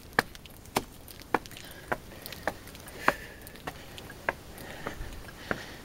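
Footsteps of a hiker climbing weathered wooden trail steps in boots, a sharp step about every half second or so, about ten steps at an even pace.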